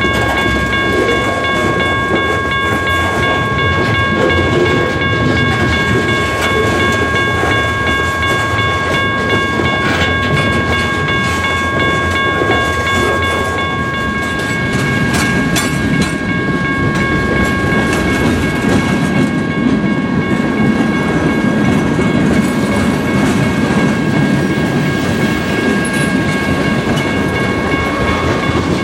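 A freight train of covered hopper cars rolling past close by: a steady low rumble of wheels on rail with scattered clicks and clatter. Over it runs a steady high-pitched whine.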